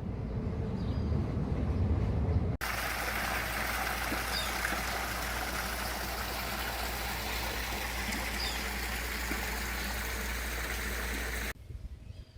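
Pool fountain splashing steadily into the pool. It is preceded by a louder low rumble for the first couple of seconds, and the water sound cuts off suddenly near the end.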